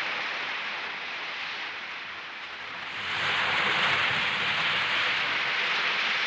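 Sea surf: waves breaking and washing up a sandy beach, a steady rushing that swells louder about three seconds in.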